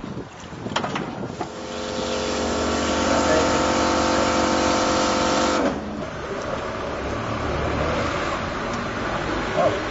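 A motor-driven machine runs with a steady hum and hiss. It builds up over the first seconds, holds steady, then cuts off suddenly a little past halfway, leaving a fainter steady noise.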